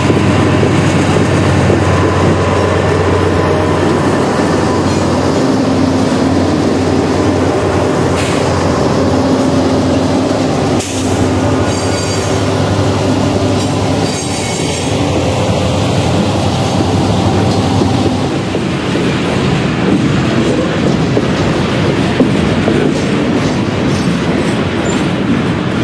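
Canadian National freight train's cars rolling by loudly, with steel wheels squealing on the rails.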